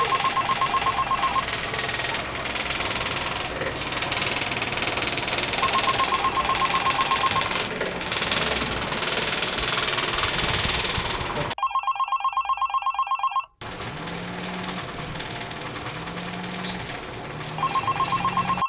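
Smartphone ringing for an incoming call with a trilling, bell-like ringtone: rapid-pulsing rings about two seconds long, repeating roughly every six seconds. Between the rings there is a loud steady noise.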